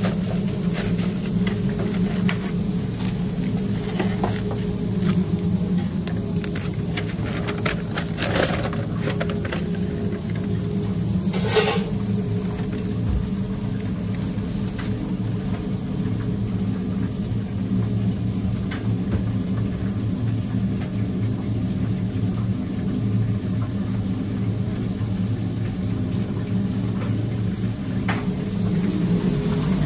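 Steady low machine hum with a few short, sharp clinks, the loudest a little before the middle.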